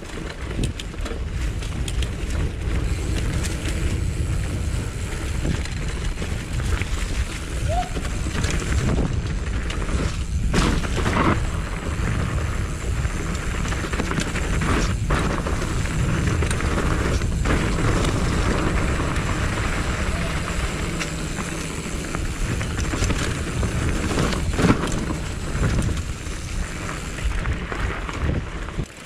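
Mountain bike ridden along a dirt forest trail: a steady rumble of tyres and air noise, broken by a handful of sharp knocks and rattles as the bike hits bumps.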